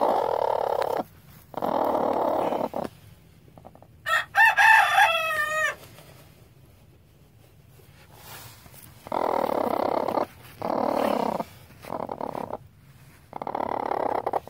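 Hen on her nest growling at an approaching hand in raspy bursts of about a second, a sign that she is upset and guarding her eggs. A rooster crows once, about four seconds in.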